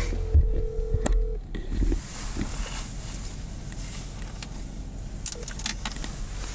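A phone's ringback tone as a call rings out: one steady ring about two seconds long that stops early on. Low rumble and a few short knocks follow.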